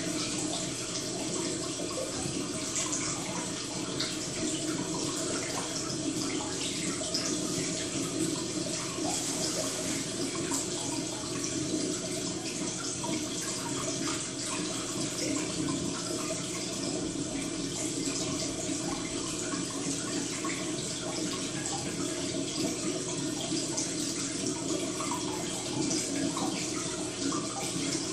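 Steady sound of running water, unchanging throughout.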